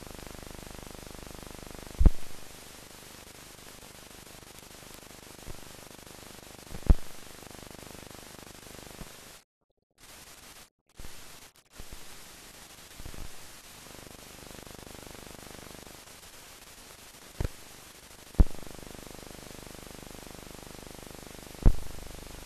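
Steady hiss of an old mute newsreel film transfer, broken by several sharp clicks and pops. Near the middle the sound cuts out to dead silence a few times for a fraction of a second each.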